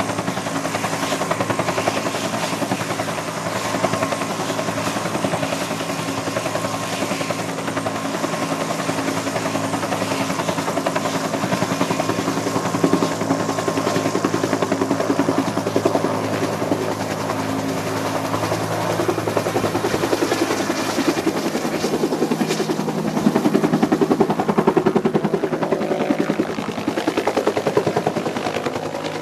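Bell UH-1 Huey helicopter's turbine whining and two-blade main rotor beating steadily while it runs on the ground, then lifting off. The rotor noise gets louder about 23 seconds in as it climbs out.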